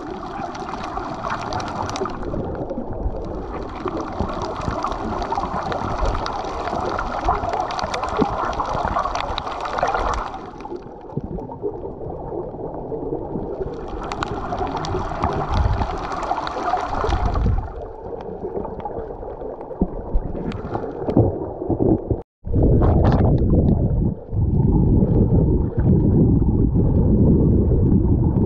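Underwater water noise picked up through a submerged action camera: a muffled rushing and gurgling of seawater that swells in several long stretches. About two-thirds of the way through it cuts out for an instant and comes back as a louder, deeper rumbling.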